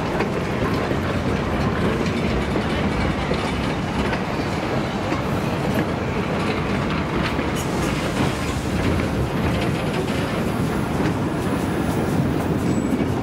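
Open-air excursion railroad cars rolling past close by: steel wheels rumbling steadily on the rails, with sharper clicks coming more often near the end.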